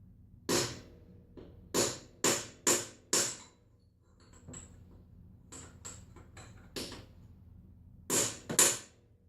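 A hammer smacks the tool that seats a helicoil thread insert in a spark plug hole of a cylinder head. The blows are sharp and metallic: four in the first few seconds, some lighter taps in the middle and two more near the end. They drive the insert fully in so it stays flush and can't pop out.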